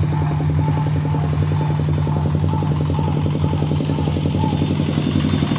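An engine running steadily at constant speed: a low, even hum with a fast throb that does not change.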